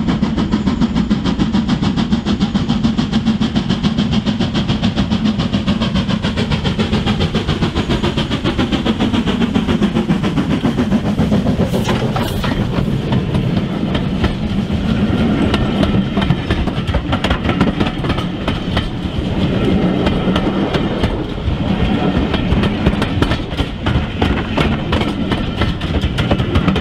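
Model train running past on its track: rapid clicking of the wheels over the rail joints over a steady low hum, continuous and fairly loud.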